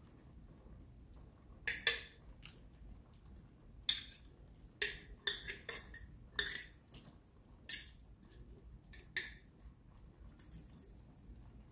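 A kitchen utensil clinking against a metal soup pot and a glass jar as broth is scooped out of the pot: about ten short, sharp clinks at irregular intervals.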